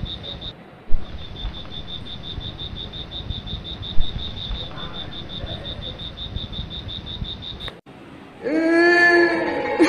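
Steady high-pitched insect trill pulsing about eight times a second, broken by two sharp loud knocks about one and four seconds in. Near the end the trill cuts off and an eerie drawn-out wailing voice begins.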